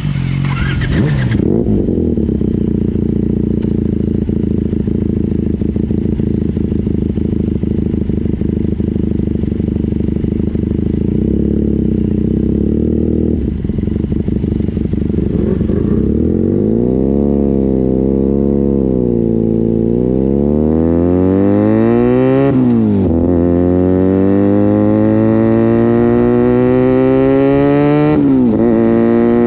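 Motorcycle engine holding a steady pitch, then revving up and down and accelerating hard. The revs climb and drop sharply twice, about 23 and 28 seconds in, as it shifts up a gear.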